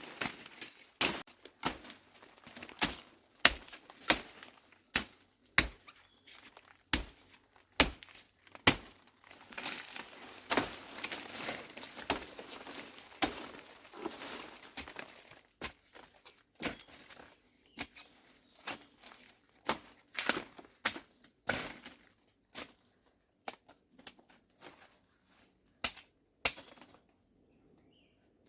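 Repeated sharp knocks, irregular, about one or two a second, thinning out toward the end, over a faint steady high-pitched tone.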